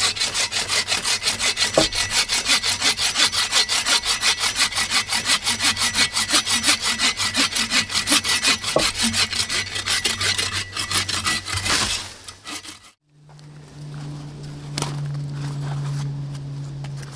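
Folding bow saw (Agawa Canyon Boreal21) cutting through the trunk of a small dying tree at its base, in quick back-and-forth strokes, about three a second. The sawing stops about twelve seconds in. After a short quiet comes a steady low hum with faint rustling.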